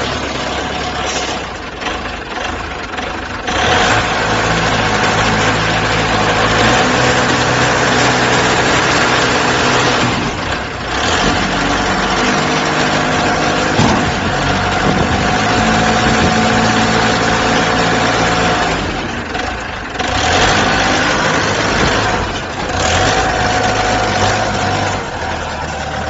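Self-loading concrete mixer truck's engine running close by, its speed stepping up and dropping back several times.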